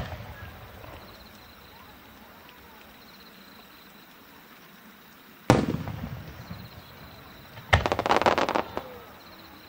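Aerial fireworks: a single loud shell burst about halfway through, its boom echoing away over a couple of seconds, then a rapid string of sharp crackling pops about two seconds later as a cluster of small coloured stars bursts.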